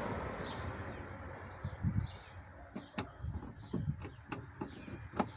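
Scattered light clicks and taps of hand work on plastic interior trim, as small screws and plastic caps are fitted.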